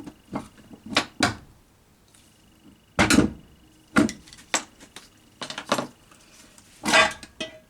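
Irregular metal knocks and clacks of a Honda EP3 Civic Type R gearbox case being worked free and lifted off its shafts. The loudest knocks come about three seconds in, again a second later, and near the end.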